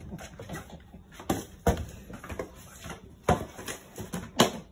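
A cardboard box stuck over a cat's head knocking against kitchen cabinet drawers and the oven: four sharp knocks, two close together about a second in and two more later, over faint rustling of the box.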